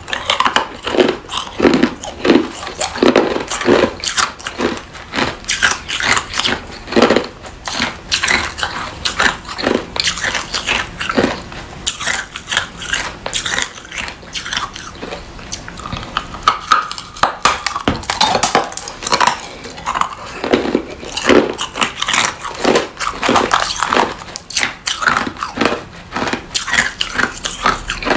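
Hard clear ice chunks being bitten and chewed, many sharp, irregular crunching cracks in quick succession throughout.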